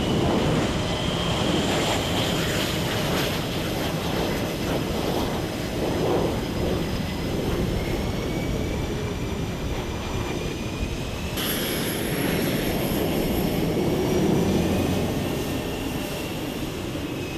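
Jet aircraft engines running on a flight line: a steady rush with several high turbine whines that drift slowly in pitch. About two-thirds of the way through, the sound changes abruptly and a new, even higher whine joins.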